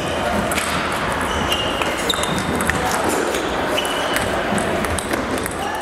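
Table tennis rally: the ball knocking off bats and table in quick, irregular clicks and short high pings, with balls from other tables and hall chatter behind.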